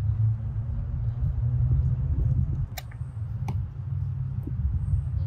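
A low, unsteady rumble throughout, with a few small sharp clicks near the middle.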